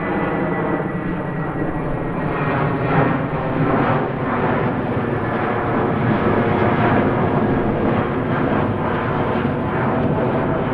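Airplane in flight, a steady engine hum with gentle swells in loudness and a faint high tone sliding slightly down near the start.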